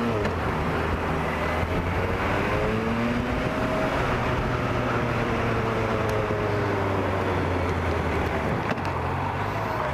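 Suzuki GSX650F motorcycle's inline-four engine running steadily under way, with steady wind and road noise. Around the middle, a fainter tone rises and then falls in pitch.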